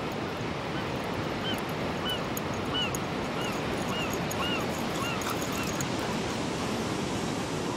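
Steady surf and wind noise at the shore. Over it, a run of short chirps, each rising and then falling in pitch, comes about three times a second from about one second in to about six seconds in.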